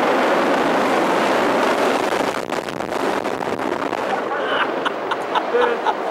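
Loud, steady rushing like strong wind blowing across the microphone, easing after about two seconds into a few scattered knocks. People begin chattering and laughing near the end.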